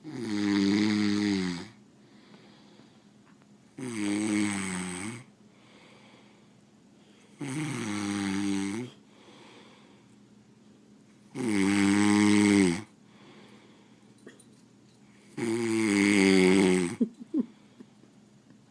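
A person snoring: five long snores about four seconds apart, each dropping in pitch.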